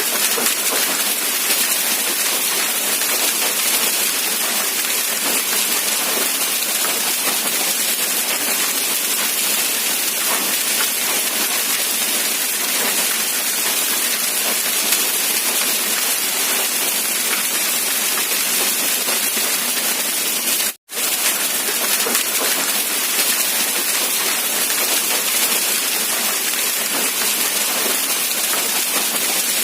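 Steady rain falling, an even hiss of drops with little low rumble. About 21 seconds in, the sound cuts out to silence for a split second and then resumes.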